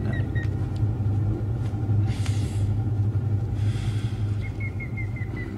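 A steady low hum, with a fast run of short high chirps near the start and again near the end, and two brief rustling hisses in the middle.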